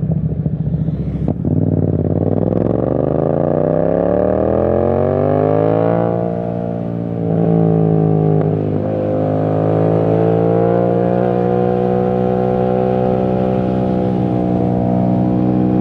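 Yamaha MT-07 (2021) parallel-twin engine through a full titanium exhaust with no dB killer, accelerating: the engine note climbs steadily for about five seconds, eases off and picks up again about six seconds in, then holds a steady pitch at speed.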